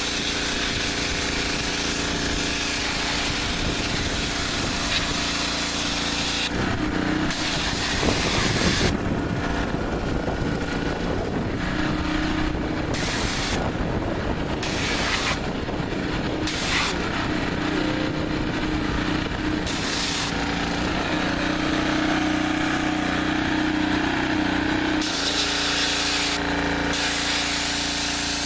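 Pressure washer running steadily while its spray blasts brain and tissue out of a boiled deer skull. The hissing jet cuts in and out repeatedly as the trigger is squeezed and released, more often in the middle stretch.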